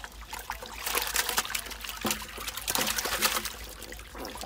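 Water splashing and trickling, loudest in two stretches about a second apart, with small clicks and drips through it.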